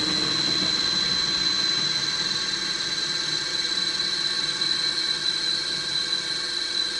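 Bench drill press with its new electric motor run from a frequency converter (VFD) at nearly 50 Hz, spindle turning at almost 1800 rpm, running steadily with a constant high-pitched whine over the motor's hum.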